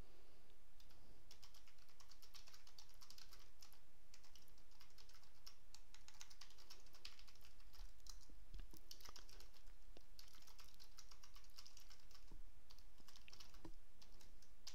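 Typing on a computer keyboard: runs of quick keystrokes broken by short pauses, with a steady low hum underneath.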